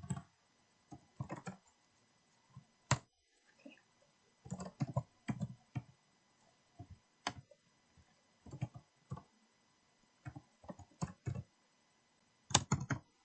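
Typing on a computer keyboard: irregular keystrokes, some single and some in quick clusters, with short pauses between.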